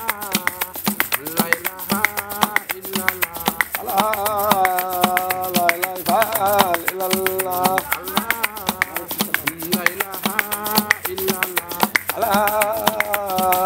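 A man singing a wavering, ornamented melody over a quick, steady patter of hand-tapped percussion clicks.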